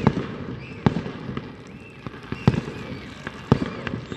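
Aerial fireworks bursting in a series of sharp bangs, roughly one a second, the loudest just at the start.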